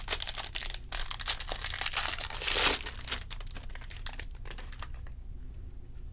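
Foil wrapper of a baseball card pack crinkling as it is torn open, loudest about two and a half seconds in, then dying away to faint handling.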